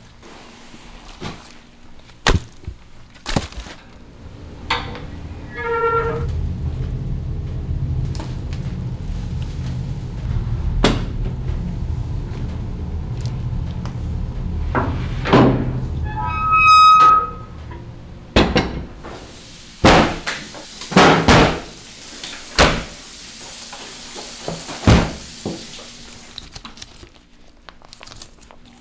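Irregular knocks and thuds of handling work, several of them sharp and loud, with a low rumble for about ten seconds through the middle and two brief squeaks.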